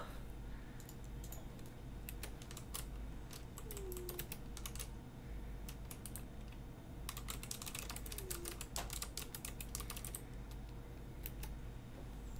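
Faint computer keyboard typing: runs of quick key clicks that come in several short bursts with pauses between them.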